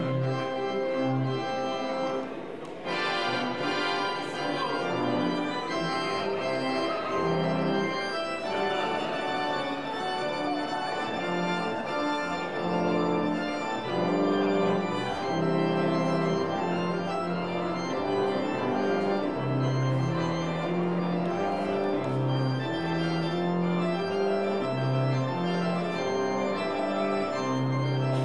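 Three-manual church organ playing sustained full chords over a moving bass line. A short break comes about two and a half seconds in, followed by a fuller, brighter chord.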